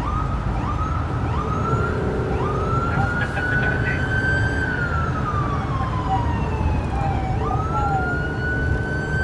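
Ambulance siren heard from inside the moving vehicle: a few quick rising yelps, then a slow wail that rises, falls and rises again, over a low rumble of engine and road noise.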